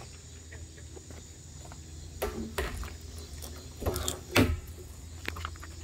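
A few scattered sharp knocks and scrapes of hard plastic as the cut-off top of a 55-gallon plastic drum is handled and pulled out of the drum, the loudest a little past the middle.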